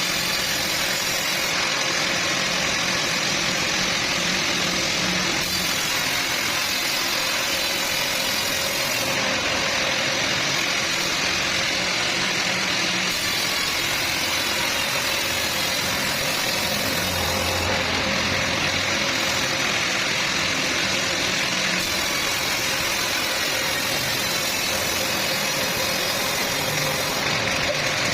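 Sawmill saw running steadily, cutting trembesi (rain tree) wood, a loud even machine noise with a faint steady hum.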